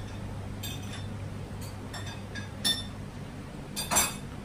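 Tableware clinking at a table: several short, separate clinks, with the loudest near the end.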